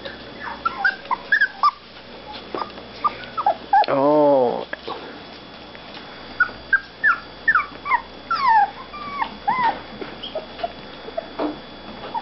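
Petite golden retriever puppies whimpering and squealing in many short, high calls, some sliding upward and others falling, thickest in the second half. About four seconds in, a low, drawn-out human voice sound, the loudest thing here, lasts under a second.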